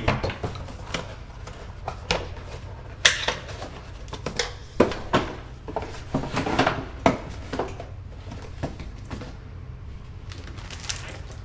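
Unboxing handling noise: scattered taps, knocks and rustles of cardboard and paper packaging, over a low steady hum.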